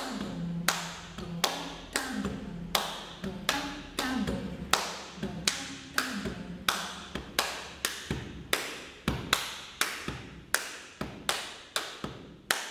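Body percussion playing the maksoum rhythm: hand claps for the tá and palm slaps on the chest for the dum, in a steady repeating pattern of sharp strikes, about two to three a second.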